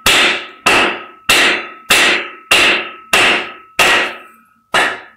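Hammer blows on a wooden block resting on a steel washer, driving a cylinder liner down out of a WD615 diesel engine block. About eight evenly paced strikes, roughly one and a half a second, each leaving a brief ringing tone, with a slightly longer pause before the last.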